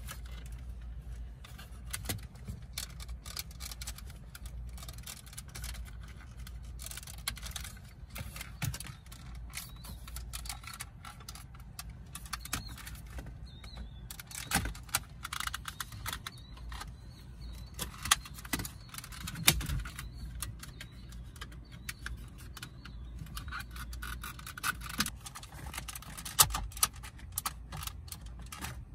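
Plastic trim tool prying at the clips of a BMW F30 AC/radio control panel: scattered clicks, scrapes and rattles of plastic on plastic, with a few louder snaps in the second half, over a low steady hum.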